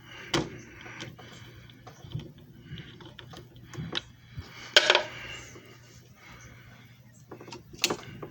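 Scattered clicks and knocks of hard objects being handled, the loudest knock about five seconds in, over a low steady hum that fades about halfway through.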